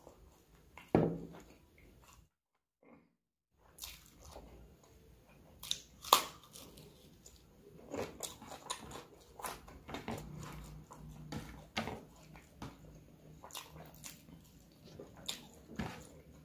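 Close-miked eating sounds: chewing and wet mouth noises, and fingers squelching rice mixed with curry on a plate. There is one sharp knock about a second in, and a brief drop to silence a couple of seconds in.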